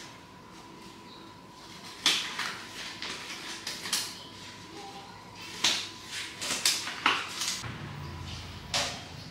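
Scattered knocks and clicks of tools and small parts being handled during an electric fan repair, about nine in all at irregular gaps, with a faint steady high tone under the first seven seconds.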